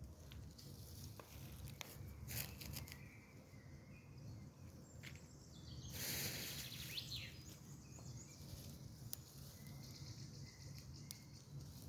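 Crackling fire giving scattered sharp pops over a low steady rumble, with birds chirping faintly. About six seconds in comes a rustling burst of about a second.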